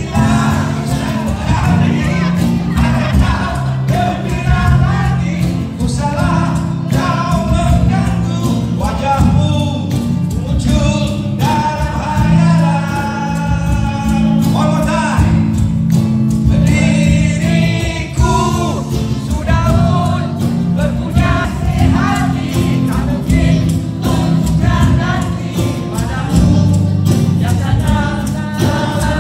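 A band playing a song with a singer over a steady beat and sustained bass notes.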